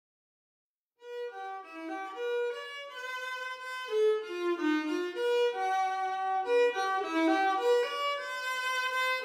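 Background music: a solo violin playing a melody, beginning about a second in.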